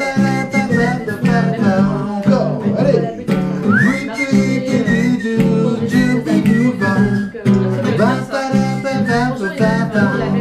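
Acoustic guitar strummed in a lively rhythm, with a man's wordless singing over it as a song's introduction.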